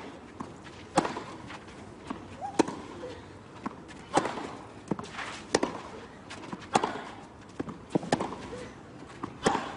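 Tennis ball struck back and forth in a baseline rally on a clay court: about seven sharp racket hits, one every second and a half or so, with short vocal grunts on some shots.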